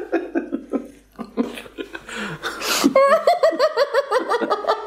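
People laughing: scattered chuckles and a sharp breath, then about three seconds in a loud, rhythmic ha-ha-ha laugh at about five pulses a second.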